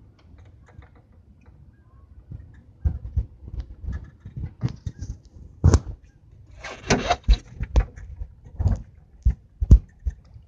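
Scattered knocks and clunks on an aluminum jon boat, starting a few seconds in, the sharpest just before the middle, with brief rushing noises soon after.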